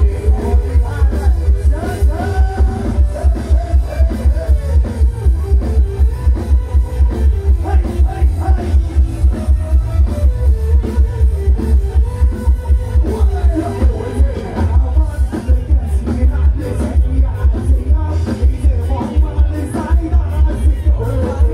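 Live band on a Thai rot hae sound-truck stage playing amplified dance music with a heavy, steady bass beat, a singer singing into a microphone over it.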